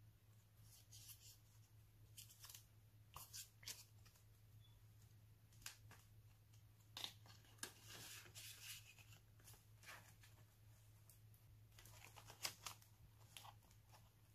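Faint rustling and crinkling of paper doilies and a clear plastic zip pouch in a ring binder being handled and opened, with scattered light clicks and taps and a longer stretch of rustling midway.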